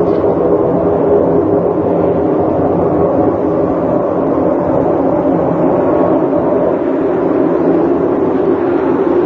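Loud, steady low droning with several held pitches layered together and no breaks: the kind of groaning noise passed around as a mysterious sound from the sky.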